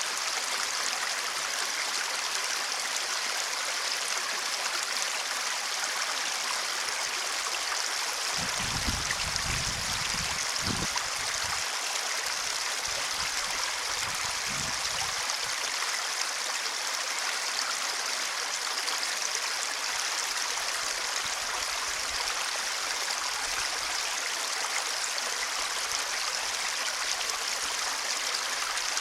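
Water in a drainage ditch flowing steadily with a constant rushing hiss. A few brief low rumbles come through about nine and fourteen seconds in.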